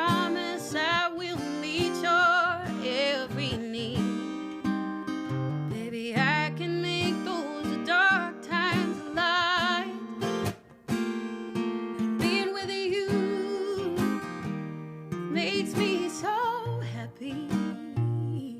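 Acoustic guitar playing an instrumental passage, with a melody line above the chords that wavers and bends in pitch.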